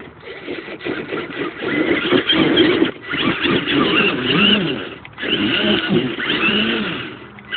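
RC monster truck's 775 electric motor whining, its pitch rising and falling again and again as the throttle is worked, with drivetrain noise underneath.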